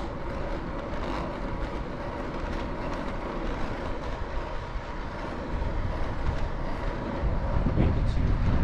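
Steady rushing road and wind noise from a bicycle ride, with a deep rumble, growing louder over the last couple of seconds.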